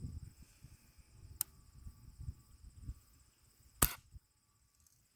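A BB gun fired once: a single sharp snap near the end, with a faint click about a second and a half in.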